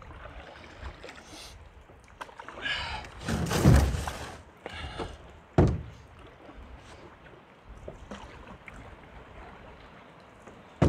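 Canoe paddle strokes swishing through the water, loudest a little over three seconds in, with one sharp knock of the paddle against the canoe's hull about halfway through.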